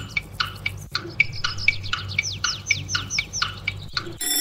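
Quiz countdown sound effect: quick bird-like chirps, each falling in pitch, about four a second, over a low steady hum, marking the time allowed to answer. An alarm-clock bell starts ringing at the very end as the time runs out.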